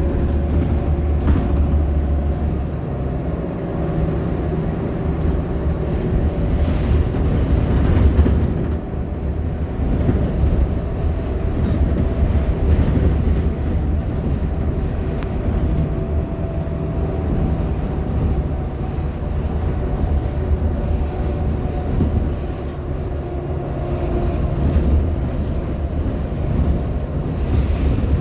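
Ride noise from a Nova Bus LFSA articulated hybrid bus, with its Cummins ISL9 diesel and Allison H50 EP hybrid drive running under a deep steady drone. Several steady whining tones sit over the drone, and a faint high whine falls away over the first few seconds.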